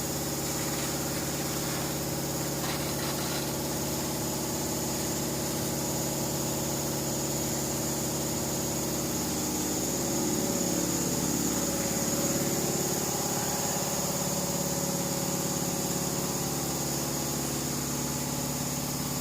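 Truck's diesel engine running steadily at idle, its pitch shifting up a little for a few seconds near the middle.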